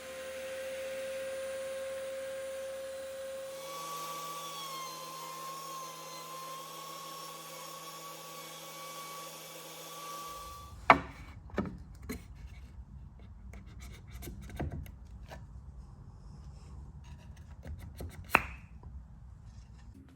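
A router motor's steady high whine, which shifts up in pitch and wavers about four seconds in, stops about ten seconds in. Wooden parts then rub and scrape together with sharp knocks, the loudest about a second after the whine stops and another near the end, as wood is handled.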